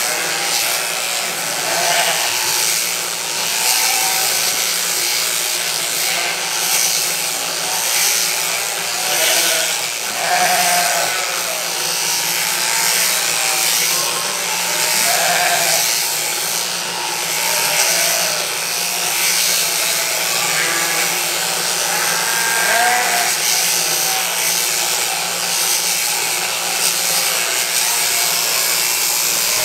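Many sheep bleating on and off over the steady buzz of an electric sheep-shearing handpiece cutting through a ewe's fleece.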